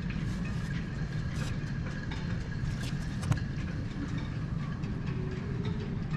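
A machine running steadily: a low hum with a faint steady high whine above it and a few light clicks.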